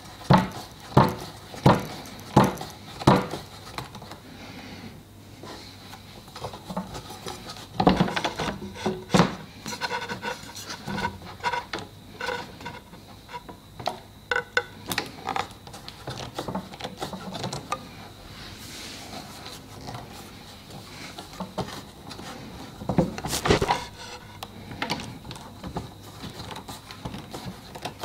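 Work noises from clamping a glued hardwood cot panel. There is a quick run of sharp wooden knocks, about two a second, in the first three seconds, then scattered knocks and clatter with wood and metal clamp bars rubbing, and another burst of knocks near the end.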